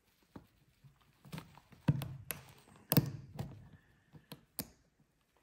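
Irregular sharp clicks and taps of metal tools against a piston as a wrist-pin retaining clip is coaxed into its groove with a guide pin. About seven knocks, the loudest about three seconds in.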